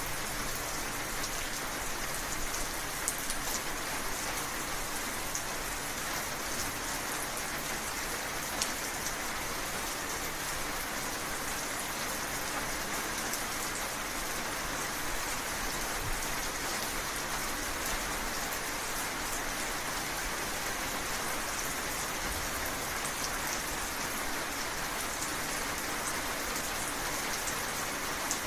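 Steady rainfall: an even hiss of rain, with individual drops ticking sharply over it now and then, more often in the first several seconds.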